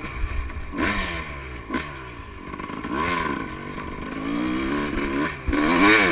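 Dirt bike engine revving up and easing off several times as it rides away through sand, with a louder rev near the end.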